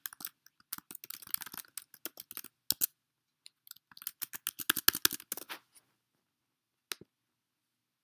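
Typing on a computer keyboard: two quick runs of keystrokes with a short pause between, then one last single click about seven seconds in.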